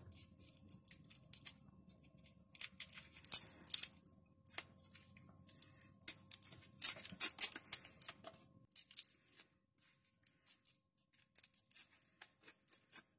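Quick, irregular scratchy rubbing strokes of a cloth wiping over a red-painted pipe wrench, fainter and sparser in the last few seconds.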